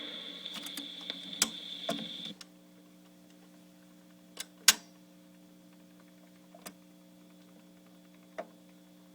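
The last of the music fades out, leaving the surface noise of a vinyl LP: a steady low hum with scattered clicks and pops. One click recurs about every two seconds, in time with the record's turning.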